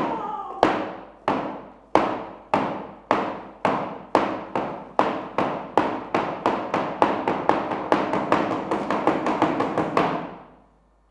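A series of sharp percussive strikes, each ringing out briefly, speeding up steadily from under two a second to about four a second, then stopping near the end.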